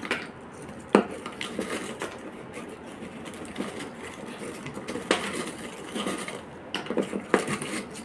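Dry, shell-shaped fried snack crisps rustling and crackling as hands rummage through them in a bowl, with scattered sharp snaps, the loudest about a second in.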